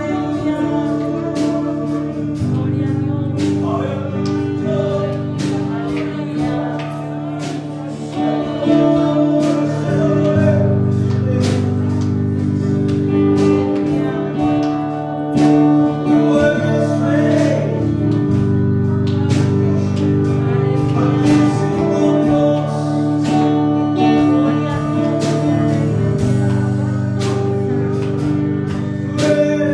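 Worship song: a man singing over instrumental accompaniment with sustained chords and a steady beat.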